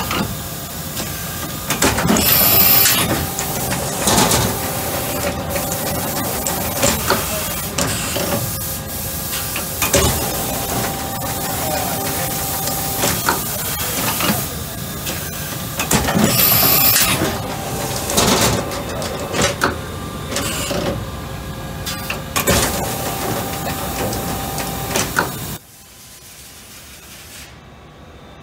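Doosan VC400 vertical machining center running through its automatic tool change cycle: a steady machine hum with repeated clunks and knocks from the tool changer, and two loud hissing bursts, about two seconds in and again about sixteen seconds in. The noise drops sharply to a much lower level near the end.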